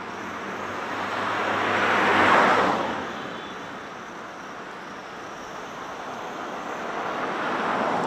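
Road traffic: two cars pass close by, one after the other. The first is loudest a little over two seconds in and fades away. The second builds toward the end.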